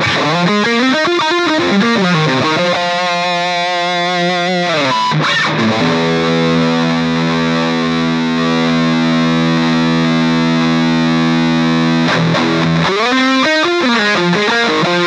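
Distorted electric guitar playing a lead line through an Axe-Fx III modelling the Mesa/Boogie Triaxis USA Pre Lead 1 channel, chorus off. It opens with bent notes, holds one long sustained note for about seven seconds, then bends again near the end. The tone is thick and heavily driven, a 'much ballsier sound'.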